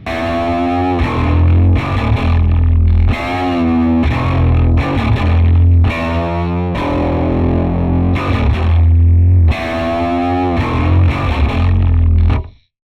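Shreddage 3 Precision sampled 5-string Precision bass playing a riff of sustained notes, several of them sliding up or down in pitch in legato lines. It cuts off suddenly shortly before the end.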